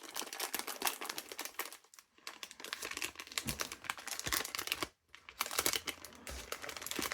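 Packaging of a trading-card double pack crinkling and crackling as it is handled and its tape is peeled open, a dense run of small crackles and clicks with two brief pauses, about two and five seconds in.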